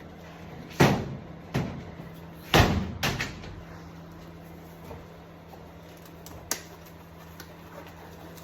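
Several knocks and bangs: one about a second in, another a moment later, the loudest about two and a half seconds in with two smaller ones right after it, and a last sharp knock near the end, all over a steady low hum.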